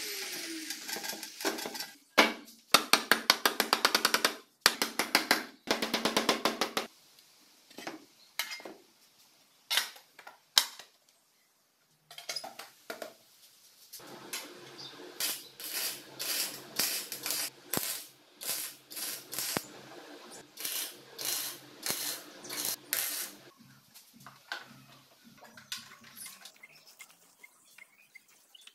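Metalworking. An angle grinder's disc spins down with a falling whine just after it is switched off. Then come bursts of rasping metal work and a long run of repeated clinks and taps on sheet-steel parts.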